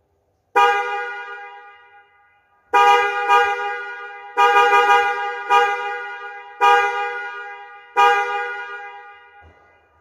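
A newly fitted pair of Denso snail horns, one low and one high, sounding together as a loud two-tone car horn. They give a string of honks, short and long, some in quick succession, from about half a second in until near the end.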